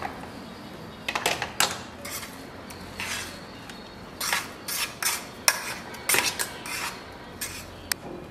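A metal spoon scraping and clinking against a stainless steel mixer-grinder jar while scooping out thick ground chutney, in a run of short, irregular clinks and scrapes.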